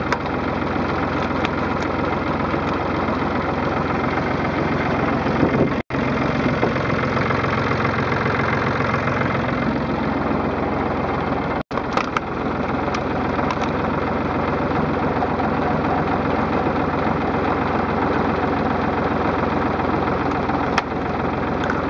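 Tractor engine running steadily, driving a PTO screw-cone log splitter that bores into and splits logs, with a few short sharp cracks. The sound drops out for an instant twice.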